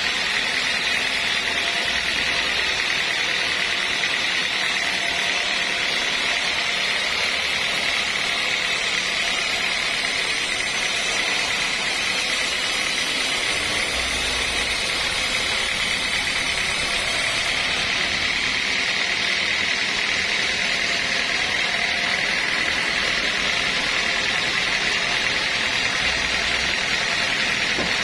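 Sawmill machinery running steadily, a continuous mechanical noise with a high, even whine on top.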